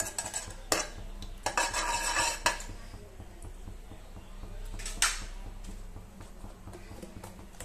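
Steel spoon knocking and scraping against the inside of an aluminium pressure cooker as ghee is spooned in. There are a few clinks in the first two and a half seconds and a single sharp knock about five seconds in.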